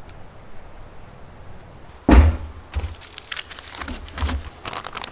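Aluminium foil crinkling in irregular bursts as food is wrapped in it by hand. It starts suddenly and loudest about two seconds in, after faint outdoor ambience.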